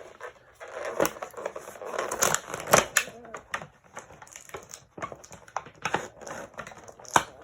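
Plastic and cardboard toy packaging being handled and pulled open, with irregular crinkling and sharp plastic clicks.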